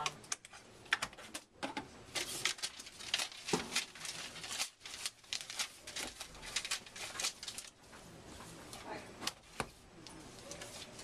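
Library books being handled and set down on a desk: a string of short knocks and clicks, with paper slips rustling between them.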